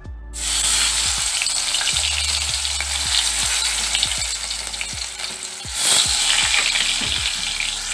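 Rohu fish steaks sizzling loudly as they hit hot mustard oil in a kadai and fry. The sizzle flares up again about six seconds in as another steak goes into the oil.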